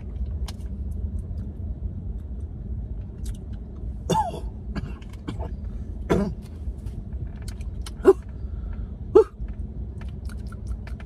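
A man clearing his throat and coughing while eating, in four short vocal bursts in the second half, the last two the loudest, after tasting a spicy dipping sauce. Quiet mouth and chewing clicks sit over a steady low rumble.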